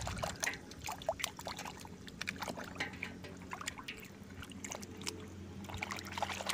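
Water sloshing and splashing in a basin as a hand scrubs a plastic toy bus under the surface, with irregular small splashes and drips.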